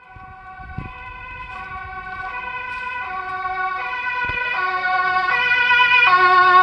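Police car two-tone siren, stepping between a high and a low note about every three-quarters of a second and growing steadily louder as the vehicle approaches.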